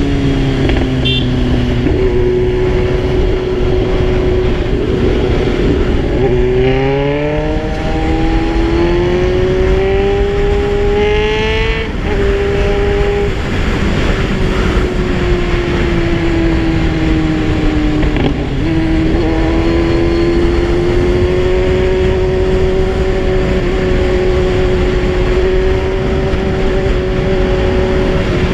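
Kawasaki Z1000 inline-four engine under way, its note rising and falling through several gear changes and then holding nearly steady at cruise, with a steady rush of wind noise underneath.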